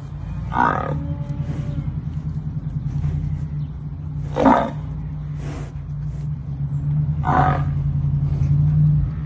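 Water buffalo calling three times, short loud grunting calls about three seconds apart, over a steady low rumble.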